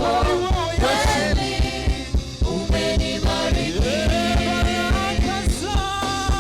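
Live gospel praise music from a church band, with a steady quick drum beat under sustained melodic lines.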